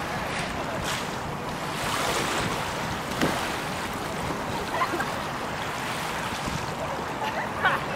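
Steady rushing noise of choppy lake water and wind on the microphone.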